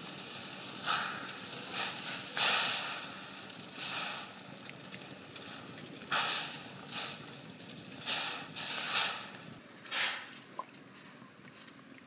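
Water splashing and sloshing in a wide metal wok as chicken pieces are lowered into it and pushed into place by hand, in a series of short splashes a second or so apart.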